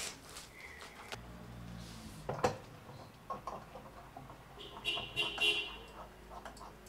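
A lampshade being handled and fitted onto a ceramic table-lamp base: light knocks and rustles, with one sharp knock about two and a half seconds in and a brief high-pitched sound around five seconds in.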